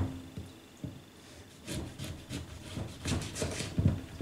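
Kitchen knife sawing through a lemon on a cutting board: a run of short scraping strokes, several a second, through the second half. A sharp knock comes at the very start.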